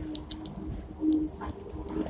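Sixth-generation Hong Kong tram running along street track, heard inside the lower deck by the driver's cab: a low rumble with a hum that fades near the start and briefly returns about a second in, and scattered light clicks and rattles.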